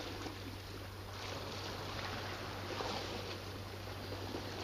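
Small sea waves washing against a rocky shore: a soft, steady wash that swells a little about a second in and again near three seconds, over a faint steady low hum.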